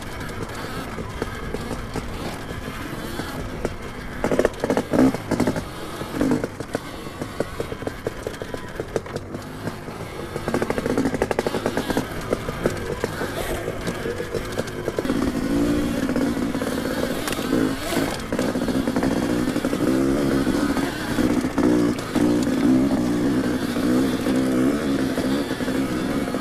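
Dirt bikes running along a forest trail, engine noise rising and falling as they ride, with wind and rattle over it. It gets louder about ten seconds in.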